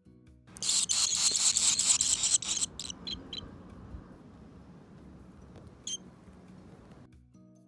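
Barn swallow nestlings begging with a loud burst of rapid, high chirping that lasts about two seconds. A few separate chirps follow, and one more high call comes near the end.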